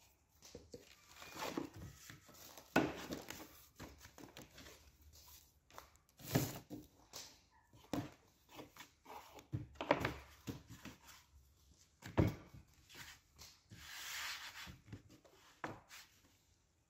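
Dough being worked and cut with a knife on a wooden board: scraping and rubbing with several sharp knocks on the wood, and a plastic bag rustling near the end.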